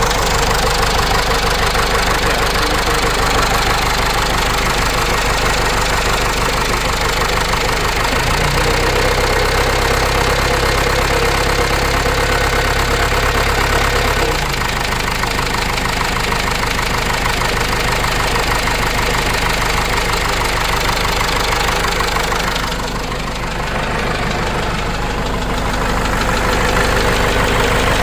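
Cummins 4BT four-cylinder diesel in a Case 586E forklift running steadily. Its note changes for several seconds about a third of the way through, then settles back, and it dips briefly in loudness near the end.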